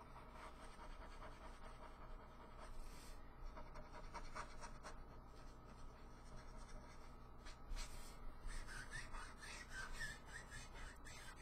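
Faint, irregular scratchy strokes of a Copic alcohol marker rubbing back and forth on white cardstock, blending a lighter colour into a darker one.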